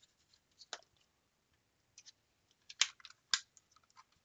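Small plastic clicks and handling taps as a circuit board is pressed back into a Ford Expedition overhead console display's plastic housing, with two sharper clicks half a second apart about three seconds in.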